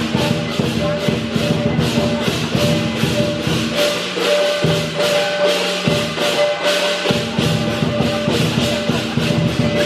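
Lion dance percussion: a big drum beating steadily while clashing cymbals strike about three times a second.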